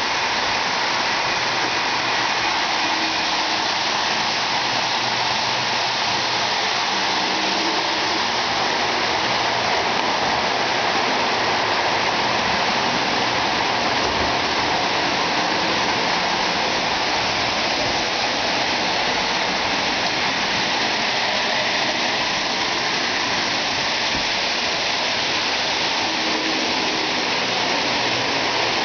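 O-gauge Lionel 4-4-2 locomotive and its passenger cars rolling on three-rail track: a steady rushing noise of metal wheels on the rails.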